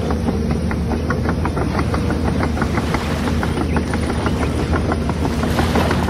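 Radio-controlled model excavator running: a steady motor hum with a rapid, irregular run of small clicks.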